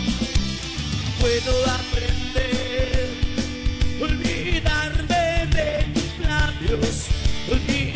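Rock band playing live: drums keeping a steady beat under bass and distorted electric guitars, with a wavering melody line coming in about a second in.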